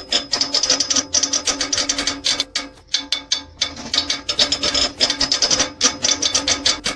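Fast, rasping scratchy strokes, many a second, over a steady ringing tone, with a few short pauses.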